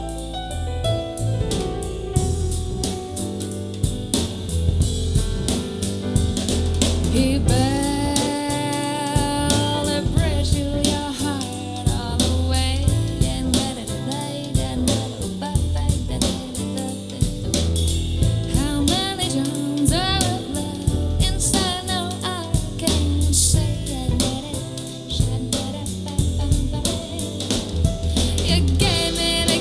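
Soul jazz song with a drum kit, a singing voice coming in about seven seconds in, heard as played back through in-ear monitors for a sound comparison.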